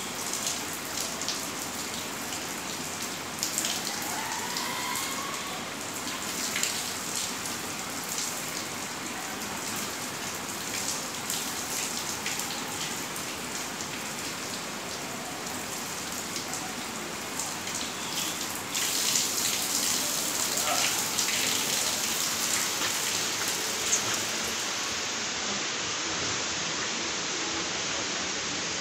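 Shower water pouring and splashing on a person and the floor, an even rain-like hiss that grows louder about two-thirds of the way through. Near the end it gives way to a steadier rushing hiss.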